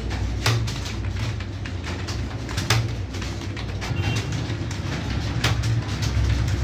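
Computer keyboard keys clicking in an irregular typing rhythm, a few strokes a second with some struck harder, over a steady low hum.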